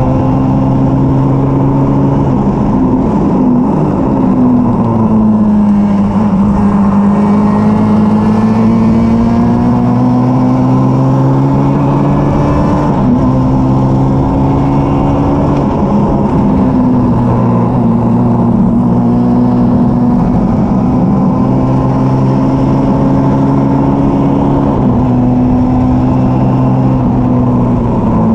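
Engine of a vintage Formula Junior single-seater race car running hard at racing speed, heard from the cockpit. The engine pitch dips about four seconds in, climbs slowly, then drops in small steps a few times later on.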